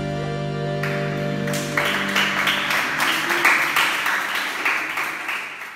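The last chord of a recorded forró song rings out and dies away. About two seconds in, a small audience starts clapping, and the clapping fades out near the end.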